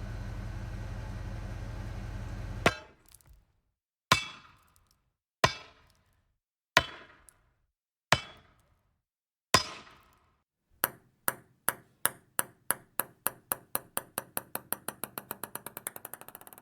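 A steady low rumble cuts off suddenly, then a sharp, ringing ping sounds about once every second and a half. Near the end the pings speed up steadily and grow fainter.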